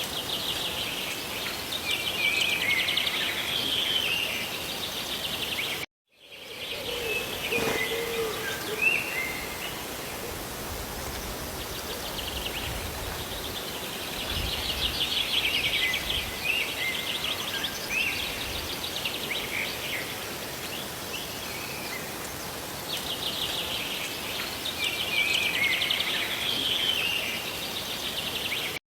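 Steady hiss of rain and falling water with songbirds singing over it: rapid trills and short chirps come in three spells. The sound cuts out completely for a moment about six seconds in.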